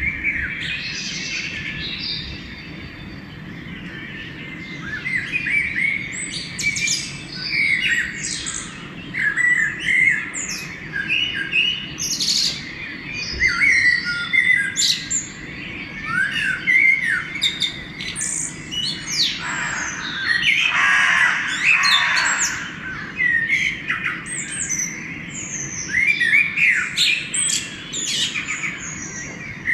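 Pre-dawn chorus of songbirds: many overlapping chirps, whistles and trills, thickening after the first few seconds, with a harsh squawking call from about two-thirds of the way through. A steady low background hum sits under the birdsong.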